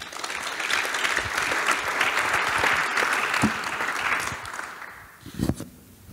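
Audience applauding, building up at once, then dying away about five seconds in, with a few light knocks near the end.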